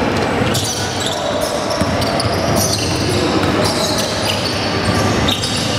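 Basketball game sounds in a gym: a ball bouncing on the court amid indistinct crowd voices, with sharp knocks scattered through it.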